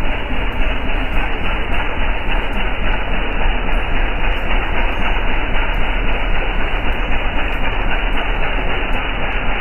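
Steady, loud running noise of a motorboat under way on a river: the engine's low rumble mixed with the rush of water and wind.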